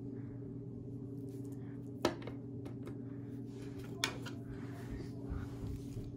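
Two light knocks about two seconds apart, as a plastic action figure is set down on a wooden table and a pencil is picked up, over a steady low hum.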